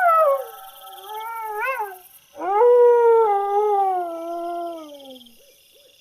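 A dog howling: a long howl trails off in the first half second, a shorter wavering one follows, then a long howl of about three seconds that slowly falls in pitch.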